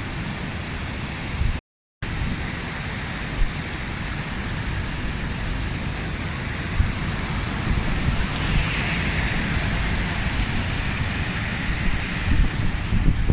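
Strong wind buffeting the microphone: a steady rushing noise with a gusting low rumble. The audio cuts out for a moment near the start.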